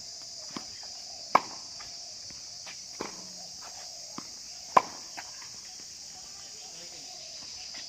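A steady, high-pitched drone of insects, with the sharp hits of a tennis ball on racket strings and court. The two loudest hits come about a second and a half in and just under five seconds in, with a few fainter knocks between them.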